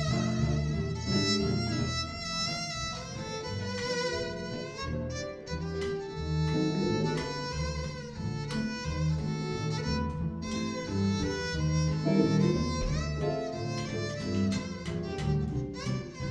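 Small jazz ensemble playing: a violin carries the melody with vibrato over two archtop guitars and a plucked upright bass.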